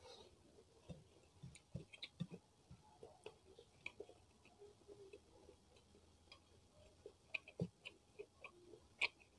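Faint close-miked chewing of a mouthful of rice eaten by hand, with small wet mouth clicks and ticks. A sharper click comes near the end.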